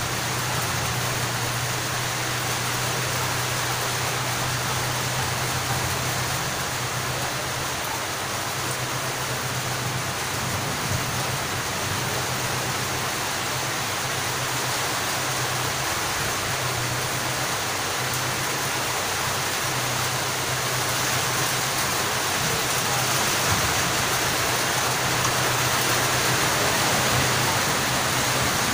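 Heavy rain falling steadily, a dense even hiss that grows a little louder near the end, with a steady low hum underneath.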